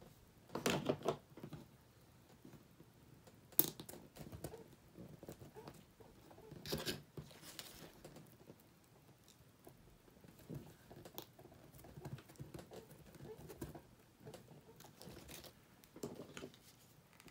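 Scattered soft rustles and light taps of satin ribbon and floral wire being handled and folded by hand on a cutting mat, with one sharp click about three and a half seconds in and a longer rustle near the middle.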